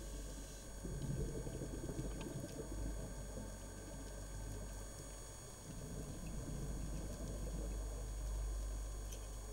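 Underwater ambience recorded in a camera housing: a low, crackling, bubbling rumble that swells and fades, over a constant deep hum and faint steady high whine.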